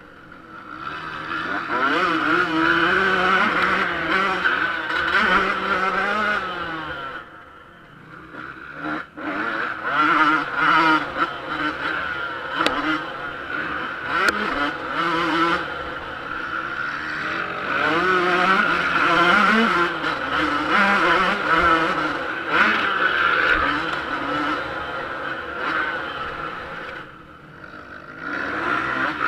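Yamaha YZ125 two-stroke motocross engine heard onboard, revving up and falling back again and again as the throttle is worked around the track. The engine note drops away briefly twice, about seven seconds in and again near the end.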